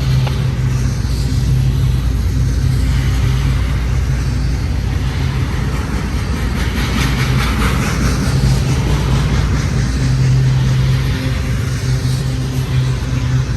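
Long intermodal freight train rolling past: a steady, loud rumble of steel wheels on rail with a low hum, and a run of clicks about halfway through.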